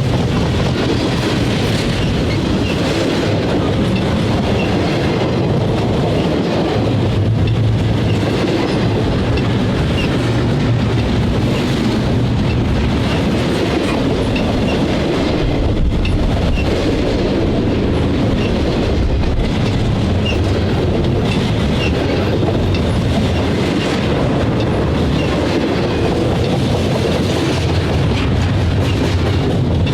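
Freight train cars rolling past at speed: a steady rumble from the wheels on the rails, with light clicking scattered through it.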